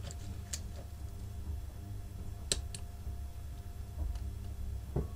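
A few light, sharp clicks from handling small parts while testing a capacitor in a component tester, over a low steady hum.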